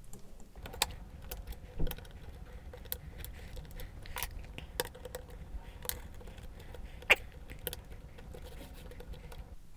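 Plastic snap clips of a Grundig GNB 1150 laptop's case being pressed back into place: a string of irregular small clicks and snaps, the sharpest a little after seven seconds in.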